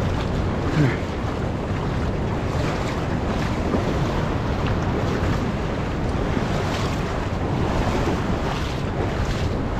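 Steady wash of shallow surf running up and back on a sandy beach, with wind noise on the microphone.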